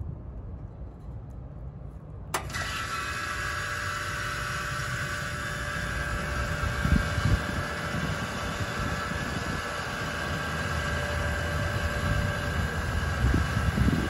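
2001 Trane XE1000 heat pump outdoor unit starting up: a sharp click about two seconds in as the contactor pulls in, then the compressor and condenser fan come on at once and run steadily with a hum and a whine.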